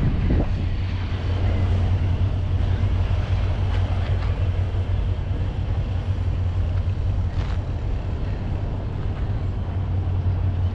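A steady low engine hum under a rushing wind-like haze, unchanging throughout.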